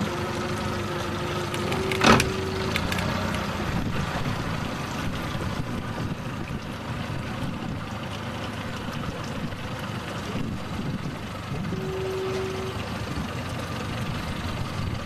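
Boat engine running steadily at trolling speed, with one sharp knock about two seconds in.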